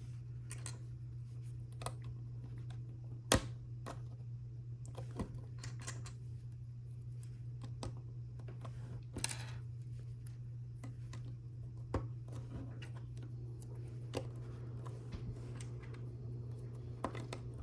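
Plastic LEGO pieces clicking and tapping as they are handled and pressed onto studs, in scattered separate clicks, the sharpest about three seconds in. A steady low hum runs underneath.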